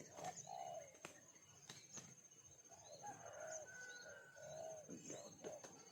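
Faint bird calls: short, low, curved notes repeated several times, with a thin steady high-pitched tone running under them and a few sharp clicks.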